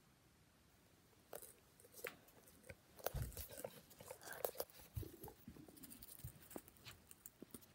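Handling noise from the recording phone being picked up and moved: scattered short knocks, rubs and rustles close to the microphone, with a couple of low thumps.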